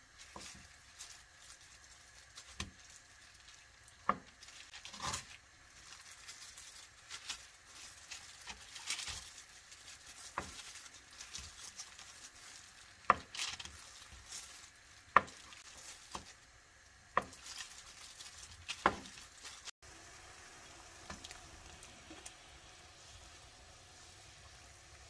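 A kitchen knife slices through processed ham and knocks on a plastic cutting board: soft slicing sounds with a sharp knock every second or two. After a cut near the end comes a faint steady simmer of water in a pan.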